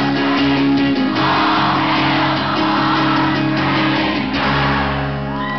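Live acoustic guitar music with singing, the guitar chords held and ringing.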